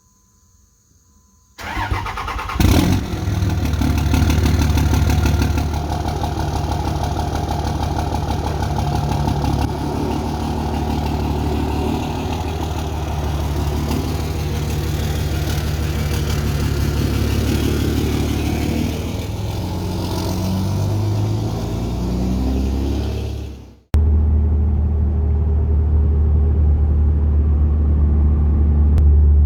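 Cummins diesel engine of a 2003 Dodge Ram 3500 being started about one and a half seconds in, then running steadily. After a sudden break near the end, a strong, steady low drone takes over.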